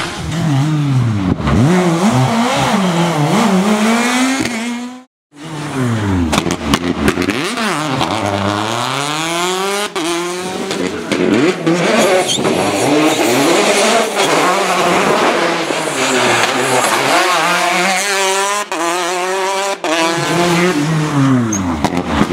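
Rally cars at speed on a stage, engines revving hard, pitch climbing and dropping through gear changes and as the cars pass, with a few sharp cracks. The sound cuts out completely for a moment about five seconds in.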